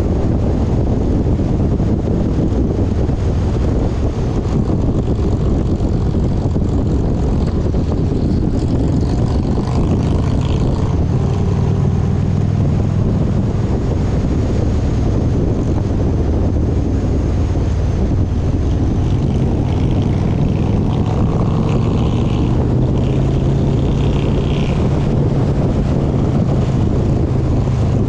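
A motor vehicle's engine running steadily, its low hum rising slightly in pitch about two-thirds of the way through, with wind rushing over the microphone.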